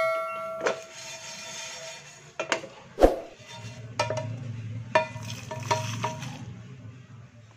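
Roasted whole spices (dried red chillies with coriander, mustard and cumin seeds) rattling as they are poured from a nonstick pan into a steel mixer-grinder jar, with several sharp clinks of the pan against the jar; the loudest comes about three seconds in. A ringing chime fades out at the start.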